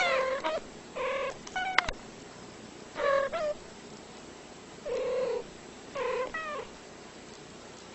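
A cat meowing in short, fairly high calls, about nine in all, several coming in quick pairs, some sliding down in pitch, with pauses of a second or more between groups.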